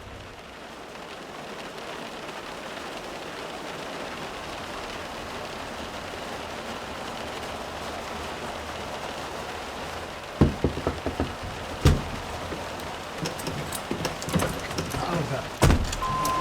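A steady rushing hiss that grows slightly louder, with several sharp knocks and clicks in the last six seconds.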